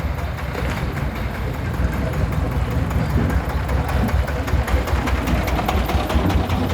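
Single-cylinder diesel engine of a công nông farm truck, a D28-type, running with a rapid, even knock.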